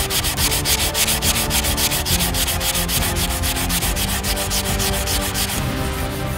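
Quick back-and-forth sanding strokes on a plastic model part, about seven strokes a second, stopping near the end.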